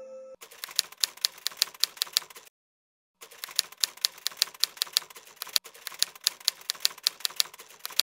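Typewriter sound effect: a run of sharp key clacks, about five a second, that stops for under a second partway through and then starts again.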